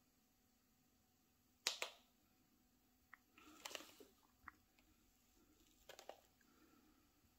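A quiet room broken by a sharp double click, then a few faint scattered crunches and scrapes of footsteps on gritty debris.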